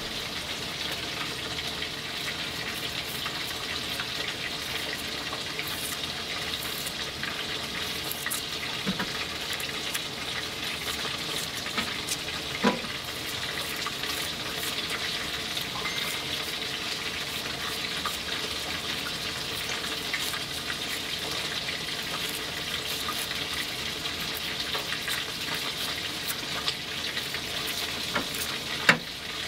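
Salmon frying in a pan, a steady sizzle, with a few faint scraping clicks of a knife peeling a carrot.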